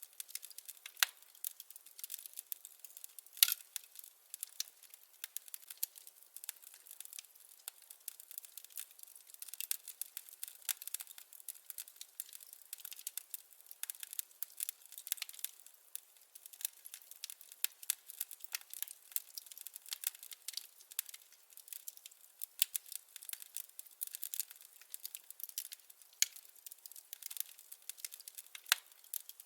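Wood fire crackling: a dense, irregular stream of small snaps and pops with a few louder pops, such as one about three and a half seconds in.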